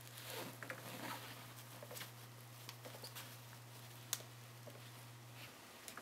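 Faint scattered clicks and soft rustles from a baby capybara moving about on a padded play mat, with one sharper tick about four seconds in. A steady low hum runs beneath and stops shortly before the end.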